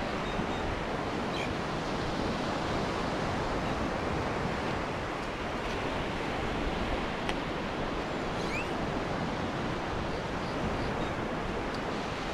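Surf washing steadily onto a sandy beach, a continuous wash of breaking waves.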